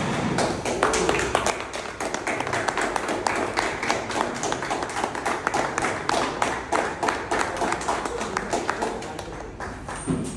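A small crowd clapping: many quick, uneven hand claps that thin out near the end.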